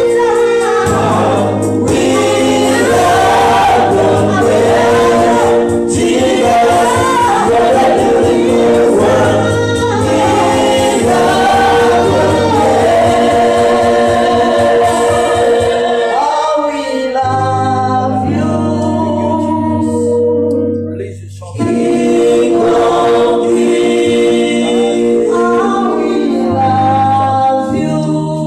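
Live gospel worship singing by a church praise team: lead and backing singers over a held keyboard accompaniment. The music briefly drops away about three-quarters of the way through, then resumes.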